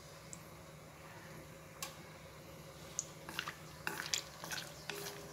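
Hot coconut oil with whole cinnamon, cardamom and cloves in an iron kadai, over a low steady hum. About two seconds in it starts to pop, and the sharp crackles and spits come thicker near the end as curry leaves go into the oil.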